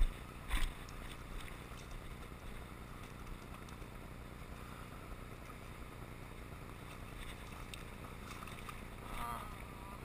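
Mountain river running over stones, a steady rushing, with two short knocks in the first second.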